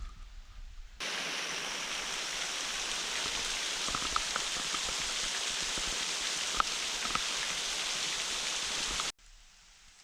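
Steady rush of falling water, starting abruptly about a second in and cutting off abruptly near the end.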